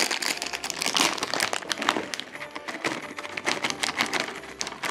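Clear plastic bag crinkling and rustling as small hard chocolate pieces are tipped out of it onto a wooden tabletop, in a dense run of irregular crackles.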